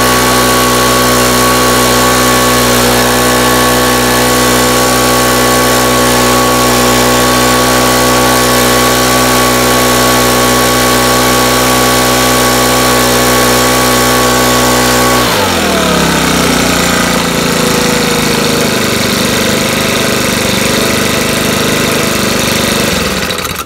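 Makita BHX2500CA leaf blower's four-stroke engine running steadily while being warmed up so the oil drains faster. About 15 seconds in the revs drop sharply and it runs on at a slower idle, then stops near the end.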